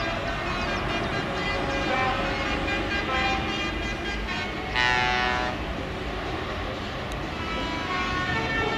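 A lorry's air horn sounds one short blast, under a second long, about five seconds in, over a steady background din.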